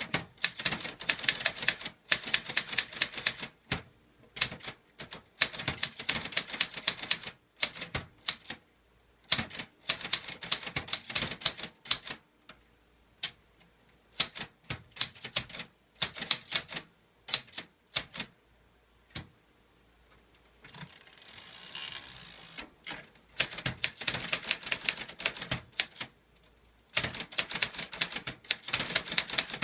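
Clover Top Star 10s Korean typewriter being typed on without an ink ribbon: quick runs of sharp keystroke clacks broken by short pauses. A little past two-thirds of the way through, the clacking stops for a softer rasping stretch of about two seconds before typing resumes.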